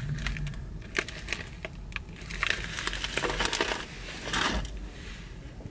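Paper french-fry bags crinkling and rustling as they are handled, in irregular bursts with a few sharp ticks.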